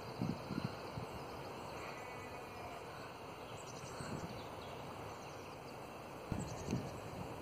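Spring outdoor ambience: a steady hiss of background noise with small birds chirping briefly three times. There are short low thumps on the microphone about a quarter second in and again near the end.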